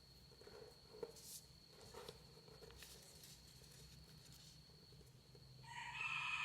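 Faint rustling and soft clicks of paper being handled and creased, over a steady thin high hum. Near the end a louder, brief pitched sound with several tones comes in.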